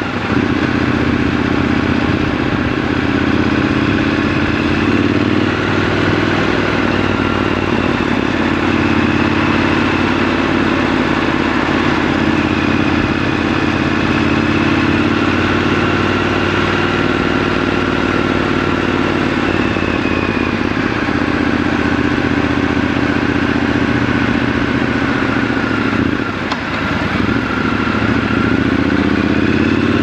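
Triumph Scrambler 1200 XC's 1200 cc parallel-twin engine running under way in city traffic, its note rising and falling as the rider opens and closes the throttle. It briefly drops a few seconds before the end.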